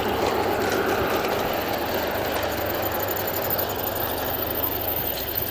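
Model train running along its track, a steady mechanical running noise.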